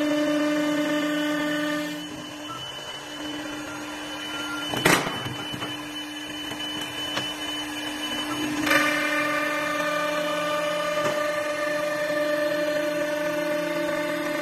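CNC wood lathe with automatic feeder running on a pool-cue blank: a steady machine hum with several high tones while the tool carriage travels, dropping quieter about two seconds in. A sharp clack about five seconds in is the loudest sound, and a second clack near nine seconds comes as the hum steps back up.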